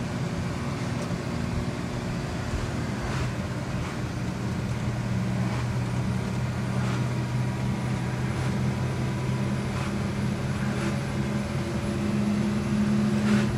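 Large truck engine running steadily under way, heard from inside the cab. It grows a little louder near the end, with a few faint knocks and rattles from the cab along the way.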